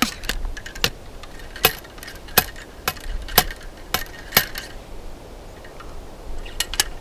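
Ramrod bounced down the bore of a .72-caliber Pedersoli Kodiak double-barreled muzzleloading rifle onto a patched round ball, giving a sharp click each time it lands: about eight in the first four and a half seconds, then two more near the end. The rod bouncing back is the sign that the ball is fully seated on the powder.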